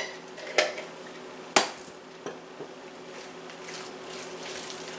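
A spoon knocking against a glass jar and a glass bowl while sweet pickle cubes are spooned into chicken salad: a few sharp clinks, the loudest about one and a half seconds in, then soft stirring in the bowl near the end.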